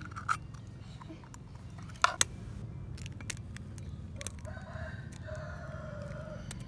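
A few sharp cracks and clicks over a low steady rumble, then a rooster crows for about two seconds near the end.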